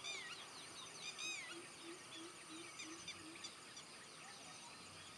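Faint wild birds calling: several slurred, arching whistles, most of them in the first second and a half, then scattered thinner calls. A low note repeats about six times near the middle, over a faint steady high tone.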